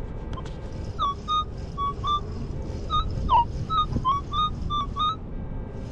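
Minelab E-TRAC metal detector sounding a string of short, high beeps as the coil is swept back and forth over a buried target, the tones shifting slightly in pitch, with one sharply falling tone in the middle. It is a high-tone 'squeaker' signal, the kind he has just dug a silver Mercury dime from.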